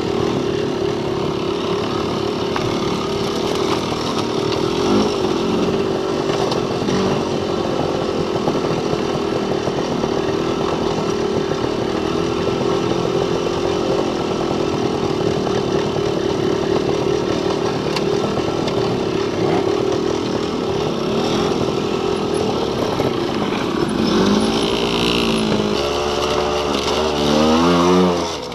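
Trail motorcycle engine running steadily under way. Near the end the revs rise and fall several times as the rider climbs the rough trail.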